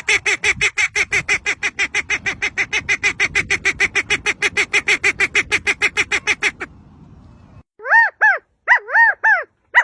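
A bird calling: a fast run of repeated notes, about seven a second, for about six and a half seconds. After a short pause come a few clear notes that rise and fall in pitch, in pairs.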